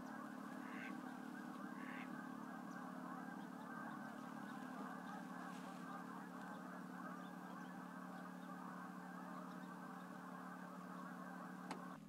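Faint flock of geese honking continuously over a low steady hum, with a sharp click near the end.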